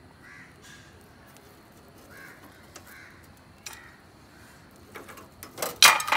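A string of faint, short bird calls, caw-like, repeating through the first few seconds. Near the end come a few louder, sharp knocks.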